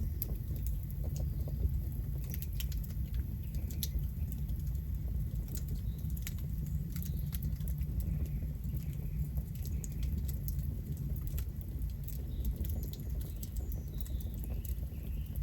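Campfire of burning wood: a steady low rumble of the flames with frequent sharp crackles and pops. Faint bird chirps come in now and then in the second half.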